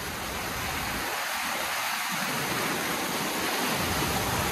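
Steady rush of falling water from a waterfall, growing slowly louder.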